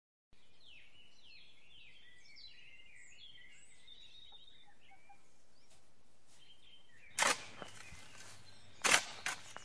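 Birds chirping over a steady outdoor hiss, a rural ambience. In the last few seconds come several sharp knocks, the loudest about nine seconds in.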